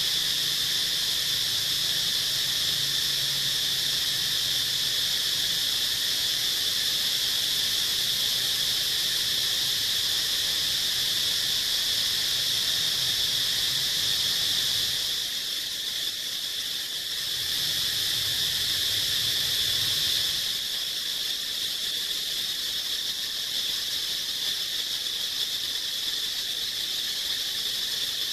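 A steady, high-pitched chorus of insects droning without a break. A low hum sits underneath for about the first half and returns briefly a few seconds later.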